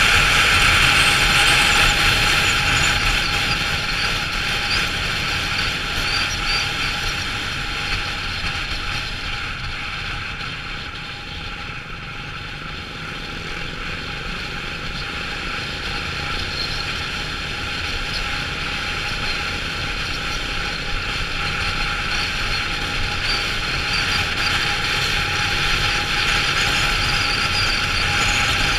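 Riding noise picked up by a motorcycle-mounted camera on the move: rushing wind and the running engine. It eases off around the middle and builds again toward the end.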